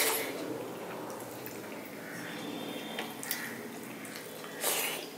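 A person eating rice by hand at close range: wet chewing and lip-smacking, with a sharp smack as a mouthful goes in at the start and a louder wet smack near the end.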